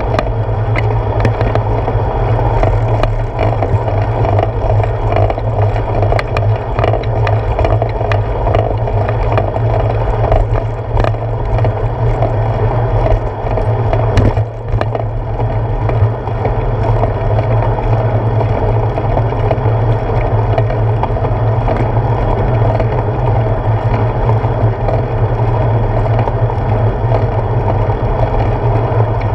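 Bicycle rolling over pavement, picked up through a handlebar-mounted GoPro Hero 4: a steady muffled rumble of tyre and road vibration with frequent small clicks and rattles from bumps. There is a sharper knock about fourteen seconds in.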